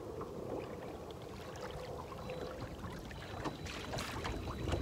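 Small waves lapping against the hull of a bass boat, with a low steady rumble of wind. A few light knocks and splashes come near the end.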